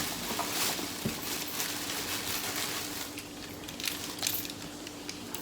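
Light clicks, taps and crinkling from handling plastic takeout containers and sauce packets, with a noisy hiss in the first second, over a faint steady hum.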